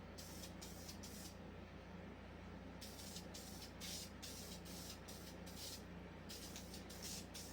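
Aerosol spray paint can putting down a silver base coat, heard as a faint quick series of short hissing bursts. There is a pause of about a second and a half early in the series.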